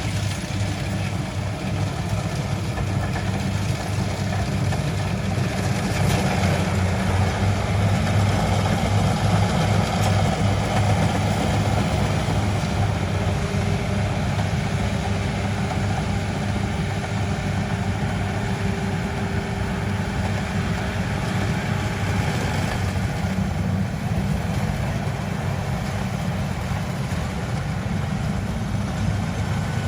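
Combine harvester's engine running steadily, a constant low hum with a mechanical rattle above it.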